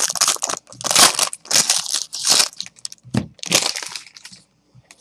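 Trading card pack wrapper being torn open and crinkled by hand in a series of rustling crunches, with a dull knock a little past three seconds.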